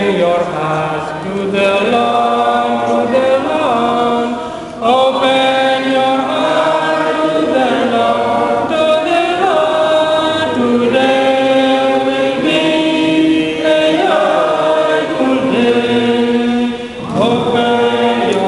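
A hymn sung in church, led by a man's voice over the pulpit microphone, in phrases of long held notes with brief breaks between them.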